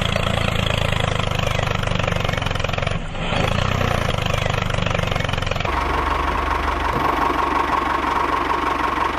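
Small engine running steadily with a low chug, heard as the miniature walk-behind tractor drives, with a short dip about three seconds in. A little past halfway it switches abruptly to another running-engine sound with a steady high whine, as the small stationary engine turns a belt-driven chaff cutter.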